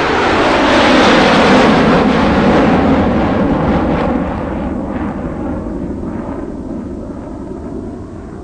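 JCB 3DX backhoe loader's diesel engine revving hard under hydraulic load while the rear boom lifts and swings a full bucket of soil. Its loud roar eases off after about four seconds.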